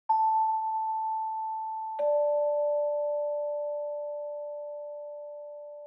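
Logo jingle of two pure chime tones: a high note sounds first, and about two seconds later a lower note joins it, both ringing on and slowly fading.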